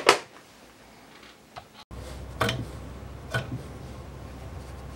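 Sharp metallic clicks and ticks from the scroll saw's drive linkage as the newly fitted 3D-printed coupler and its bearings are handled and turned over by hand, a few clicks about a second apart. From about two seconds in, a low steady hum lies under the clicks.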